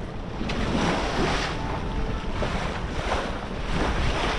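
Sea water washing and splashing around a small inflatable boat, with wind buffeting the microphone; the water comes in a few swells.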